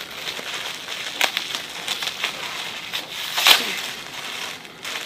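Plastic packaging crinkling and crackling as a squishy toy's bag is opened by hand, with one louder, sharper rustle about three and a half seconds in.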